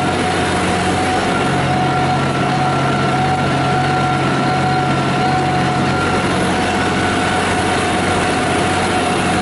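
John Deere 5075E tractor's three-cylinder diesel engine running steadily under load while pulling a disk harrow, with a steady whine over the engine note.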